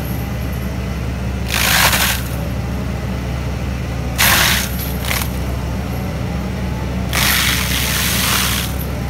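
Takeuchi TB2150 excavator's diesel engine and FAE forestry mulcher head running steadily, with four bursts of loud grinding as the spinning mulcher teeth bite into a stump and brush: about two seconds in, twice around four to five seconds, and a longer one from about seven to eight and a half seconds.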